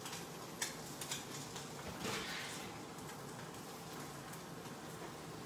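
Quiet kitchen handling sounds: a few light clicks and knocks, then a brief rush of noise about two seconds in, over a steady low hum.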